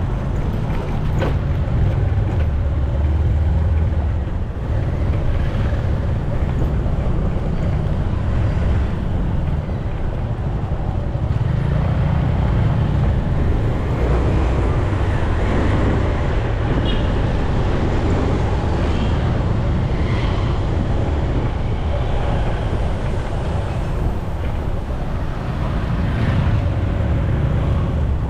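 A moving vehicle runs steadily, its engine and road noise a low rumble mixed with wind on the microphone that swells and eases every few seconds.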